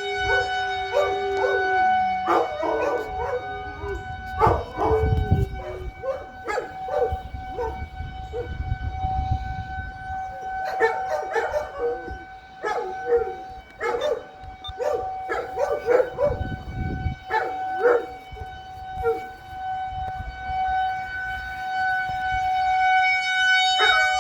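A Federal Signal 2001-130 electro-mechanical outdoor warning siren sounds a steady held tone. A dog barks over it again and again, in clusters.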